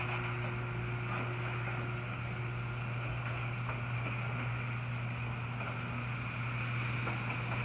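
LiftMaster 8365 chain-drive garage door opener running the door, with a steady motor hum and chain-drive noise.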